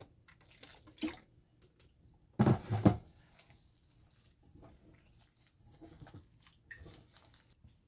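Water poured into a glass bowl of crumbly flour-and-cream dough, then hands squishing and kneading the dough in the bowl. A brief, louder sound lasting about half a second comes about two and a half seconds in.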